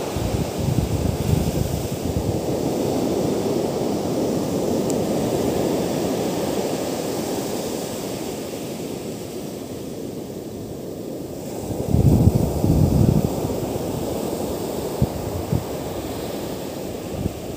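Ocean surf breaking and washing up a sand beach, a steady rushing wash, with wind buffeting the microphone. A louder low rumble comes about twelve seconds in, and a few short knocks come near the end.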